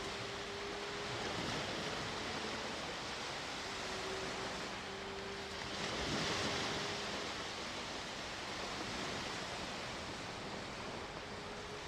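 Sea waves washing onto the shore, a steady wash of surf with one wave swelling louder about six seconds in.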